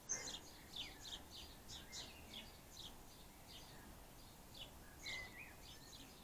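Small garden birds chirping and tweeting, faint: many short high chirps, several a second at times, with a brief lower whistled note about five seconds in.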